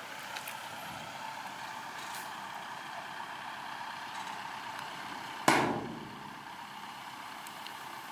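Heavy diesel machinery engine running steadily, with one sudden loud burst about five and a half seconds in that fades within half a second.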